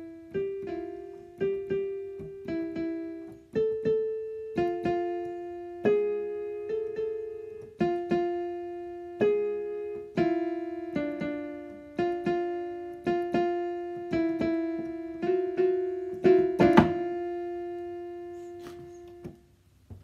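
Grand piano voice on a digital keyboard playing a slow, simple tune of single notes and two-note chords in the middle register, each note struck and left to ring down. It ends on a long held note that fades away.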